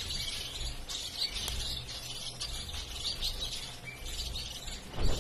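Several zebra finches calling: a busy, continual run of short, high chirps, with a thump near the end.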